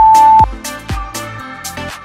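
Electronic dance music with a steady beat. Right at the start, a loud single-pitch beep from a workout interval timer, held for about half a second and higher than the shorter beeps just before it.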